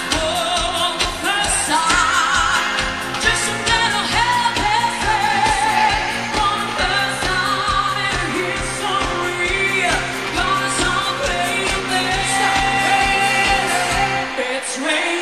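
Pop music from a live band with a singer, over a steady drum beat. Near the end the bass and drums drop out for a moment.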